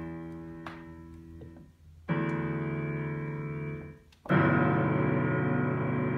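Piano keys slammed with the hand brought down from above, sounding heavy clusters of notes that are left to ring. One cluster fades, then two more slams come about two seconds apart, the second of them the loudest.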